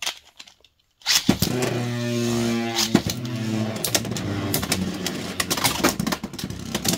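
Two Beyblade X tops, Bearscratch and Spider-Man, launched into a clear plastic stadium about a second in: a whirring hum that slowly drops in pitch, then rapid clacking hits as the spinning tops collide with each other and the stadium walls.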